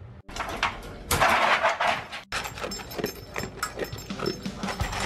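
Dry dog food poured from a cup into a stainless steel bowl, a rattling rush of kibble. After an abrupt cut, a dog eats from the bowl, crunching kibble with many quick crisp crunches and clinks.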